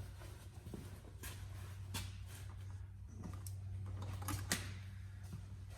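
Wire and hand tools being handled while making a light-gauge wire jumper: scattered light clicks and rustles, the sharpest about two seconds in and again near four and a half seconds, over a steady low hum.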